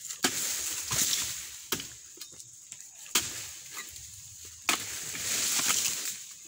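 A long-handled harvesting chisel (dodos) striking into the base of an oil palm frond about five times, each a sharp chop several seconds or less apart, cutting away the frond to reach the fruit bunch.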